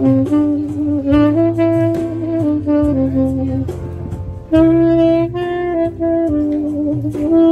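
Tenor saxophone playing a slow melody of held notes, with a brief break between phrases about four seconds in.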